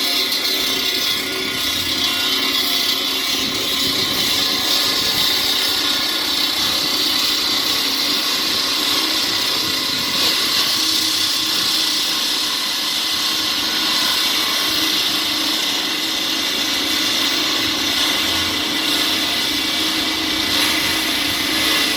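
Power tool cutting concrete, running steadily without a break, a continuous high-pitched whine and hiss.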